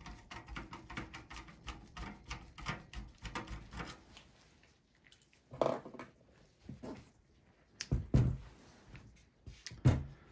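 Phillips screwdriver backing a small screw out of a motherboard mounted in a steel PC chassis, a quick run of small clicks, followed by a few louder knocks as the metal case is handled and turned.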